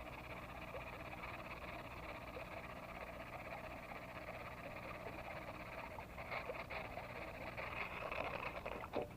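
A dense, steady chorus of calling frogs, with a few faint clicks in its last few seconds.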